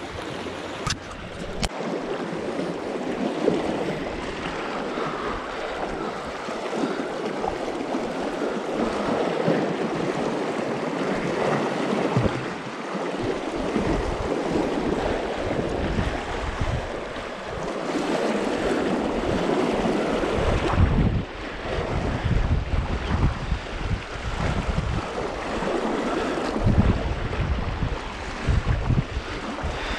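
Steady rushing of river water over a riffle. From about halfway on, gusts of wind buffet the microphone with low rumbles.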